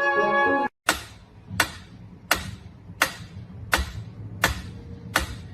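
A steady series of sharp knocks or taps, about one every 0.7 seconds, each with a short ringing tail, after a snatch of music that cuts off just under a second in.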